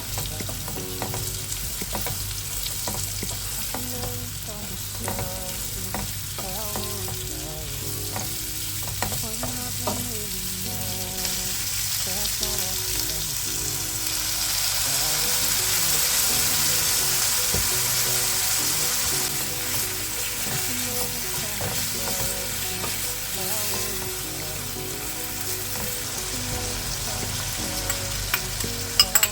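Food frying in hot oil in a pan, sizzling steadily while it is stirred. The sizzle swells louder around the middle, and a few sharp clicks near the end come from a utensil knocking on the pan.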